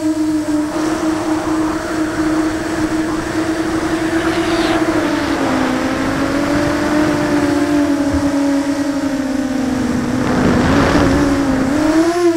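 QAV 250 racing quadcopter's four DYS 2300kv brushless motors and propellers whining steadily, heard from a camera mounted on the frame. The pitch wavers with throttle, sinks lower about eight seconds in and climbs again near the end, with air rushing over the microphone around ten seconds in.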